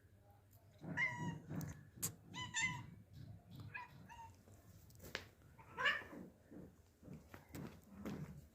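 Cat meowing about four times in short calls, with a few sharp clicks between them.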